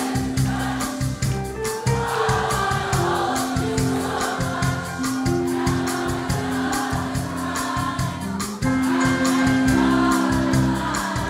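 A live swing band plays with a steady drum beat and bass. Many voices sing together over it, a crowd singing along with the band.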